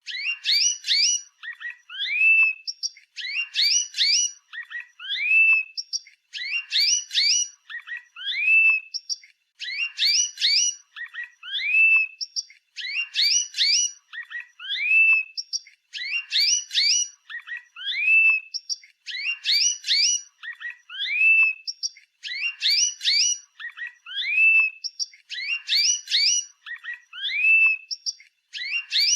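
Canary singing: a short phrase of quick chirps ending in a rising whistle, repeated about every three seconds as an identical loop.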